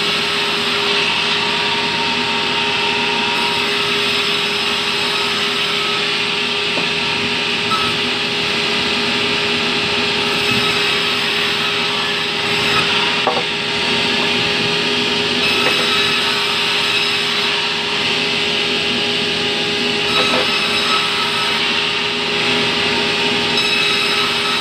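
Table band saw running steadily and cutting through a log of fibrous terap wood, the kind that dulls the blade quickly, with a couple of short knocks as the wood is pushed through.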